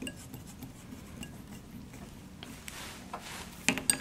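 Small clicks and knocks of hard parts being handled as blanking plugs are pushed into the spare sensor sockets of an AP-7000 water-quality probe, with a quick cluster of louder clicks near the end.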